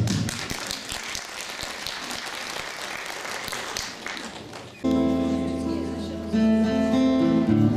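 An audience clapping, dense and steady, for nearly five seconds. It fades, and an acoustic guitar comes in abruptly with ringing chords.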